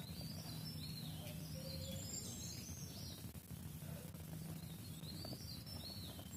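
Wild birds singing faintly: two bouts of quick, high chirping notes, the first in about the first three seconds and the second from about five seconds in, over a low steady hum.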